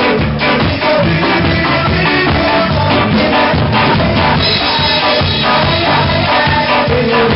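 Live ska band playing loudly, with electric bass guitar and drum kit carrying a steady, upbeat rhythm.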